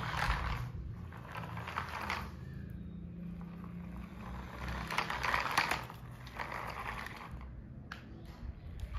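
Small rear-wheel-drive toy RC jeep driving, its electric motor and plastic gears whirring in several short bursts.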